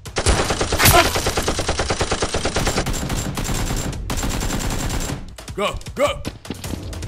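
Rapid automatic gunfire sound effect, dubbed over Nerf blasters being fired: a fast, even string of many shots a second lasting about five seconds, with a brief break near the middle.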